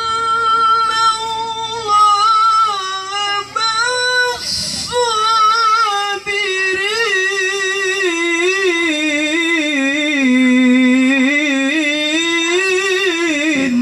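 A male qari recites the Qur'an in the melodic tilawah style into a microphone. He holds long, high notes with rapid ornamental trills and takes a brief break about four and a half seconds in. In the second half the pitch sinks lower, then rises again before the phrase stops suddenly at the end.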